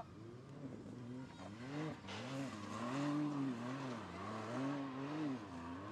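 Electric ATV's QS5000 motor whining, its pitch rising and falling repeatedly as the throttle and speed change over rough ground, with a steady hiss of tyres and wind behind it.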